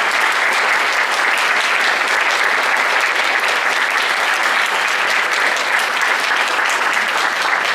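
Audience applauding, a dense, steady clapping of many hands.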